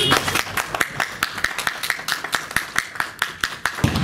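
A small group applauding: separate hand claps, several a second and uneven, rather than a dense roar of applause.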